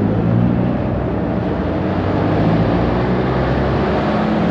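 A vehicle engine running steadily, its low hum wavering slightly in pitch under a loud, even rush of noise.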